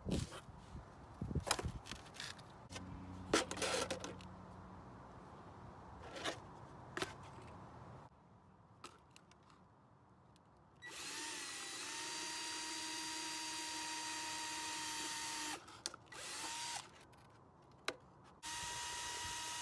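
Milwaukee M12 cordless drill running at steady speed with an even whine as it bores into the thin plastic bottom of a water jug. It runs for about five seconds starting about 11 seconds in, gives a short burst, then starts again near the end. Before that there are scattered clicks and knocks of handling the drill and its case.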